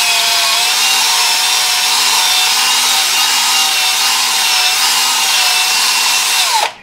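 Electric drill running steadily with a constant whine while widening a hole in a metal bottle opener, then stopping just before the end.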